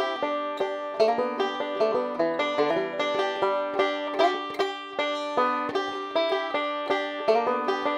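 Resonator banjo fingerpicked with Gold Tone finger picks: a quick, steady run of bright plucked notes, several a second. Heard through a Sennheiser e965 condenser microphone.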